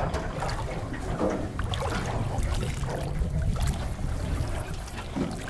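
Water sloshing and trickling against a small boat's hull, over a low, uneven rumble of wind on the microphone.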